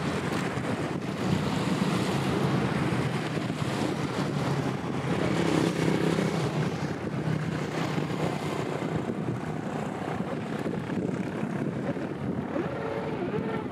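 Low, steady engine drone with wind on the microphone.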